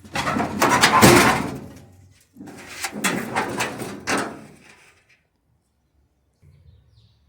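Sheet-metal drum of a gas clothes dryer being dragged out of its cabinet: two long scraping, rattling pulls, the first about two seconds long, the second about two and a half seconds.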